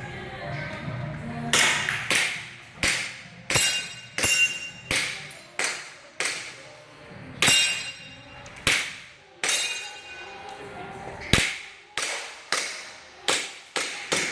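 Airsoft pistol firing a string of single shots, about one every half to one second, some followed by a short metallic ring.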